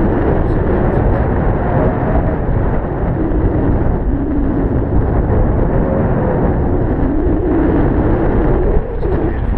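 Air rushing over the microphone during a paraglider flight: a loud, steady rush of wind noise.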